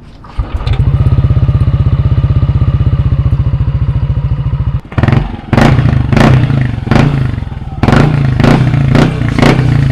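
Yamaha NMAX 155 scooter's single-cylinder four-stroke engine breathing through a newly fitted aftermarket stainless power pipe exhaust. It starts about half a second in and idles steadily, then from about five seconds in it is revved in a string of short throttle blips.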